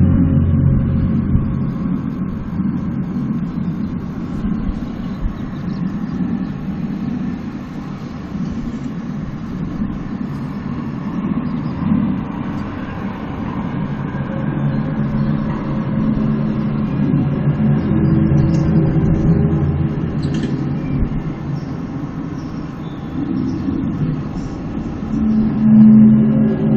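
Low droning moan made of several steady deep pitches, swelling and fading and loudest near the end: the unexplained 'strange sky sound' heard outside an open window.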